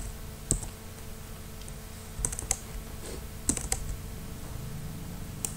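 Computer keyboard keys pressed a few times: about half a dozen separate sharp clicks, some in quick pairs, over a low steady hum.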